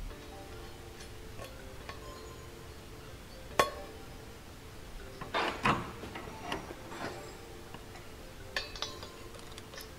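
Small metallic clinks of a nut and stainless-steel washer spacer being fitted by hand onto a turbo exhaust manifold's flange stud. There is one sharp click about a third of the way in, a cluster of clinks about halfway, and a few lighter ones later.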